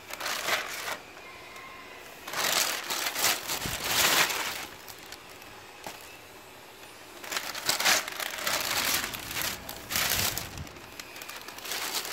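Thin plastic bag crinkling as it is pulled open and handled, in about five bursts of rustling with short pauses between.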